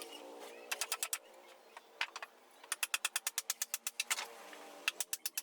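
Quick runs of sharp taps or knocks, several a second, in three bursts, over faint background music.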